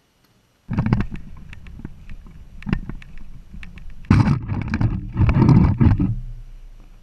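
Handling noise as the GoPro camera is picked up and carried: rubbing and knocks on the camera and its mic. It starts suddenly about a second in and is loudest between about four and six seconds.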